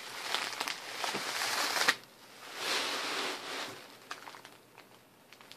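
Gift wrapping crinkling and rustling as a wrapped item is handled and unwrapped by hand, in two stretches of crackly rustling with small clicks, then a few light ticks.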